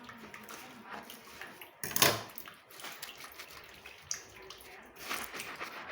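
Kitchen work sounds: water splashing at a sink while dishes and containers are handled, with one loud clunk about two seconds in.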